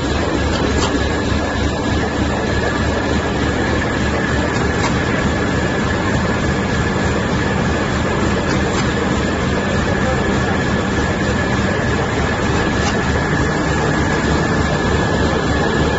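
Core-type plastic bag-on-roll making machine running steadily. It makes a continuous mechanical din with a low rapid rumble and a steady high whine, and a faint tick about every four seconds.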